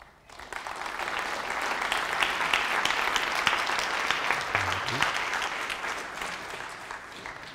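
Audience applauding, building up over the first couple of seconds and tapering off near the end.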